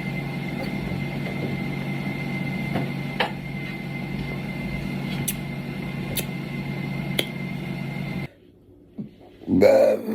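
A steady machine-like hum with a thin high whine and a few light clicks, which cuts off abruptly about eight seconds in. Near the end comes a short, loud burp.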